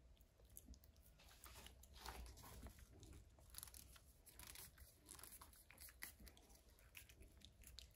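Faint wet clicks and lip-smacking from a cat licking a squeeze-tube liquid treat, mixed with light crinkling of the plastic treat pouch.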